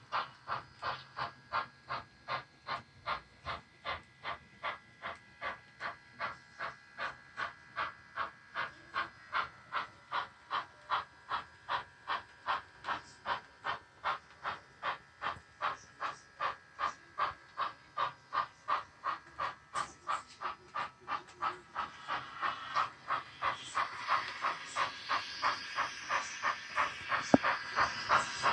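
HO-scale Rivarossi 4-4-0 model steam locomotive chuffing steadily, about two to three chuffs a second, with a hiss growing under the chuffs over the last few seconds and a single sharp click near the end.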